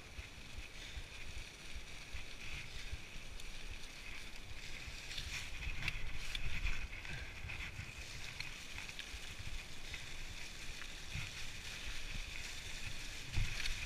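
Mountain bike rolling downhill over a trail covered in dry fallen leaves: tyres rustling through the leaves, with a low wind rumble on the microphone and knocks and rattles over bumps, loudest about six seconds in and again near the end.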